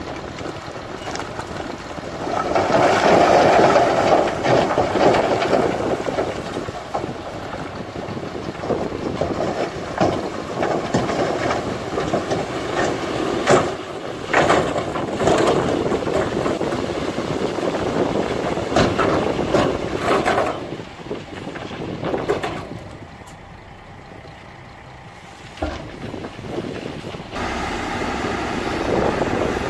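Dump truck's diesel engine running while its raised tipper bed empties a load of rocky soil: a loud rushing slide of the load a couple of seconds in, then rocks knocking and clattering onto the pile. The sound drops away for a few seconds and a steady machine noise takes over near the end.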